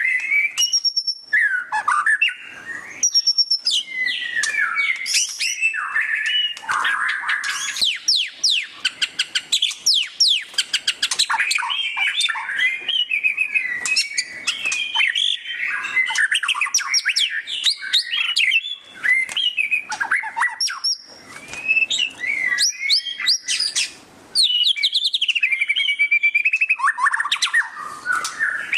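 White-rumped shama singing loudly and without pause: a varied song of clear whistled phrases and sweeping notes, broken up by bursts of very fast chattering trills (the "ngeriwik" style).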